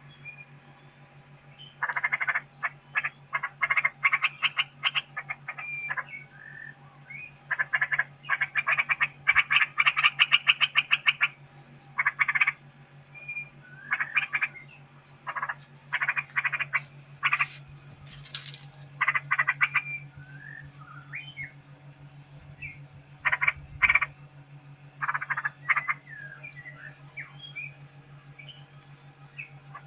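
Animal calls in loud bursts of rapid pulses, repeated every second or two, with faint short chirps in between. A steady low hum runs underneath.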